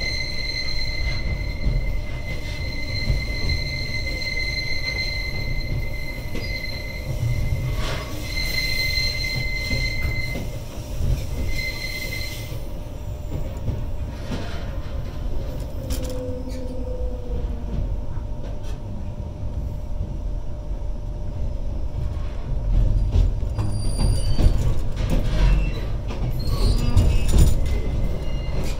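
Queensland Rail EMU electric train running, heard from inside the carriage: a steady low rumble throughout. For the first dozen seconds a high, steady squeal sounds, breaking off and returning several times, then stops.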